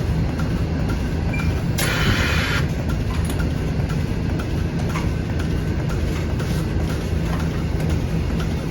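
Milking parlor machinery, the milking system's vacuum pump, running with a steady low hum, with a short burst of hiss about two seconds in.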